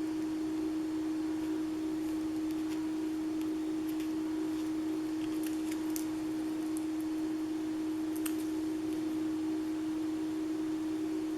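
A steady low hum on a single pitch, with a few faint light clicks and taps of letter stickers being handled and pressed onto a scrapbook page.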